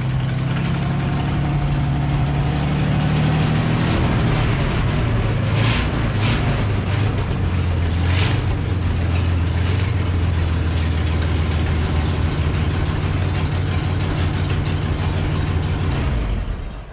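Kubota tractor engine running; its speed drops a few seconds in and it settles to a lower steady idle. A few sharp knocks sound in the middle, and the engine sound stops abruptly near the end.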